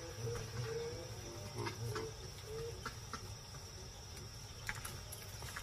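Faint, steady evening cricket chorus: an even high-pitched trill. Under it, soft repeated low notes die away about halfway through, and a few faint clicks are scattered across it.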